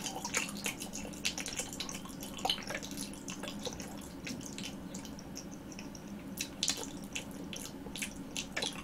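Close-miked chewing of soft green-grape jelly balls: a run of small wet mouth clicks and smacks as the jelly breaks down to a mushy texture.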